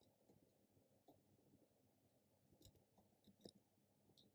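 Near silence, broken by a few faint, sparse clicks of computer keys being typed.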